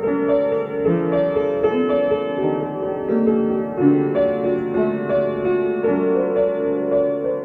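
Piano music: a melody of held notes over lower chords, with the notes changing about every half second to a second.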